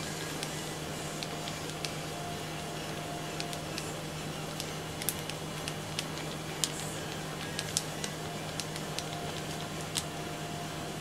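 Faint crinkles and small clicks of a plastic bag being worked with a stirring stick as blue colouring is mixed into the resin inside it, over a steady low hum.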